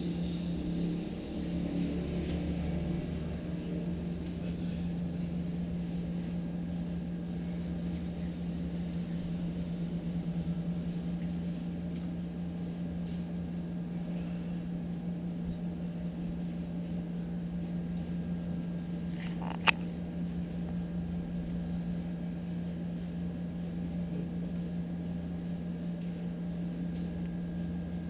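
Steady low hum of a window air conditioner running, with one sharp click about twenty seconds in.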